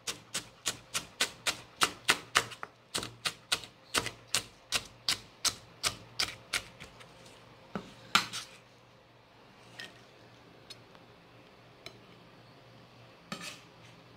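Chef's knife chopping scallions on a cutting board: steady knocks about three a second, stopping about seven seconds in.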